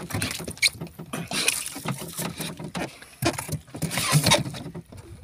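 Knocks, scrapes and wet slapping from a large diamond squid being handled into a box on a small wooden outrigger boat, in irregular bursts with two louder spells, about one and a half and four seconds in.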